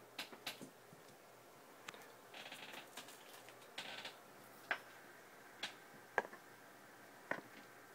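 Faint, scattered clicks of someone working a laptop, about half a dozen spread unevenly, with two brief soft rustles of handling in between.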